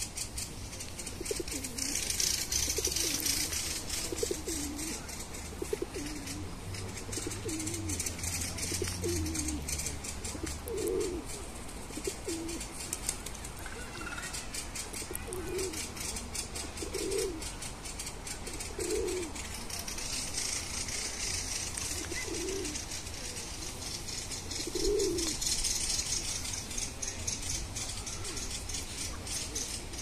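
A pigeon or dove cooing, a long series of low coos one every second or two. Over it runs a high rushing hiss that swells twice.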